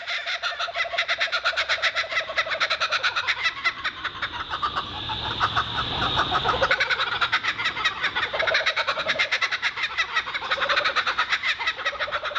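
Laughing kookaburras calling: a long run of rapid, rhythmic cackling laughs that swells and eases.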